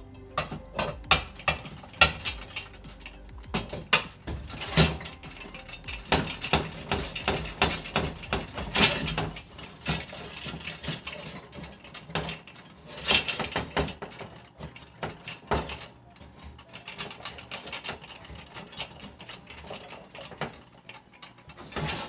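Ratchet wrench clicking in irregular runs while bolts are tightened on a chainsaw mill's frame, with metal parts clinking.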